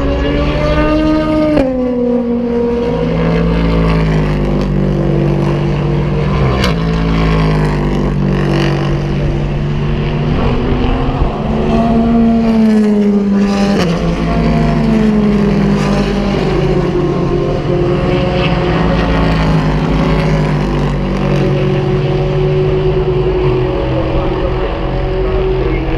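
IMSA sports-prototype and GT race cars accelerating hard past, one after another. Their engines climb in pitch and drop sharply as they shift up and go by, with engine sound the whole time.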